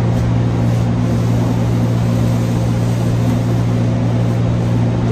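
Steady electric motor hum, a low drone with a second tone above it, over an even hiss of moving air.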